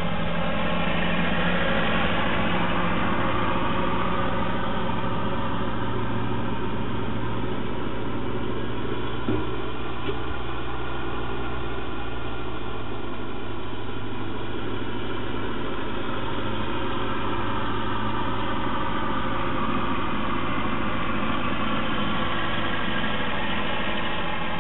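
Ferguson TEA-20 tractor's four-cylinder petrol engine running steadily as the tractor drives along, its engine speed drifting slightly up and down. Heard through a security camera's narrow-band microphone.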